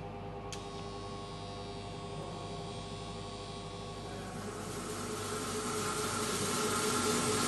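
Drum coffee roaster humming steadily with several fixed tones, with a short click of a panel button about half a second in. From about four seconds in, a rushing hiss swells and grows louder as the roaster's burner flame is turned up with the fire adjust knob.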